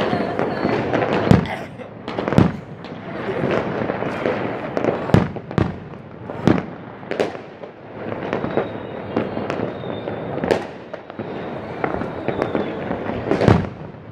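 Aerial firework shells bursting overhead: an irregular run of sharp bangs, one every second or so, with the noise of the display filling the gaps between them.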